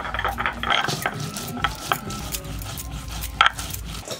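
Stone roller grinding cumin seeds on a flat stone slab (shil-nora), a repeated gritty rasping scrape back and forth with small crunching clicks. A sharper knock of stone on stone comes about three and a half seconds in.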